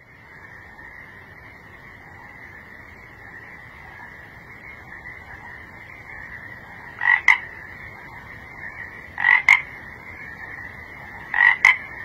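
Frog croaking three times, each call a quick double note, about two seconds apart starting some seven seconds in, over a steady high-pitched night chorus.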